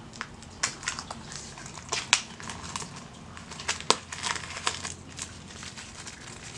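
Plastic shrink-wrap being torn open and crumpled off a wrapped pack of board-game components, with irregular crinkles and sharp crackles.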